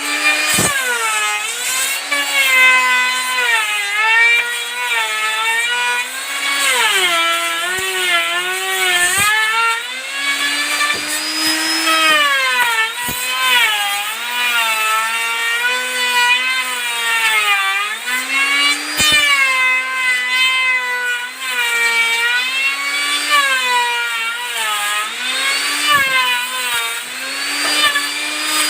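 Electric woodworking power tool cutting wood, its motor whine dipping in pitch again and again as it bogs under load and recovering between cuts, with a few sharp clicks.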